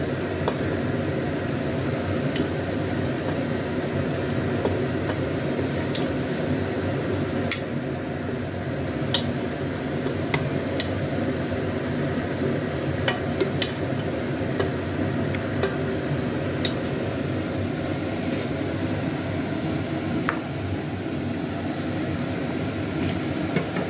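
A metal ladle scooping curry out of a pressure cooker and into a glass bowl, with scattered clinks of metal on the pot and on the glass over a steady background hum.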